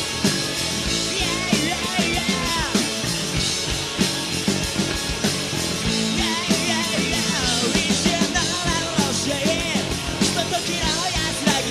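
Rock music: loud drum kit and distorted guitars playing an instrumental section, with a bending lead line above.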